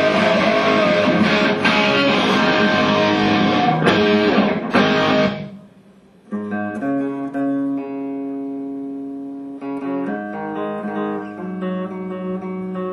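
Electric guitar played through an amplifier: a loud, heavily distorted riff that stops abruptly about five seconds in. After a short pause, cleaner chords are struck and left to ring, changing to a new chord about ten seconds in.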